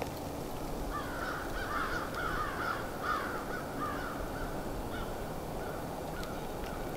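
Crows cawing: a quick run of caws starting about a second in, thinning to a few fainter, spaced calls by about six seconds, over a steady low outdoor rumble.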